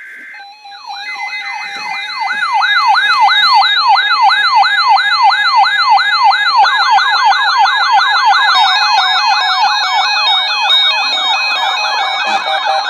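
Several NOAA weather radio receivers sounding their siren-style alert tones for the weekly test. Warbling, quick rising-and-falling sweeps, a few a second, start about a second in, and more radios join in over the next several seconds, overlapping with steady beeping tones.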